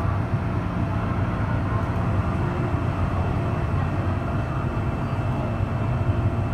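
MTR M-Train electric multiple unit running along the track, heard from inside its rear cab: a steady low running noise of the wheels on the rails with a faint steady high tone above it.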